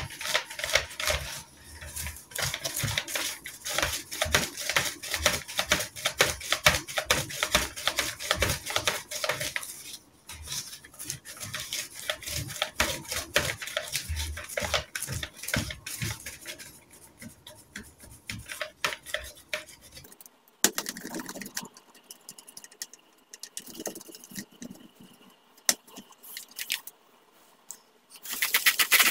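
A baby wipe rubbed over a glossy laptop screen in rapid back-and-forth strokes. After about twenty seconds the strokes become sparser and quieter. Just before the end a loud rushing noise starts.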